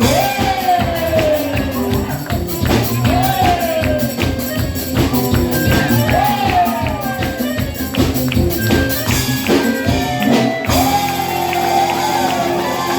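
Live band playing Brazilian music: sung phrases over dense rhythmic percussion with tambourine jingles. Near the end the percussion stops and held notes ring on.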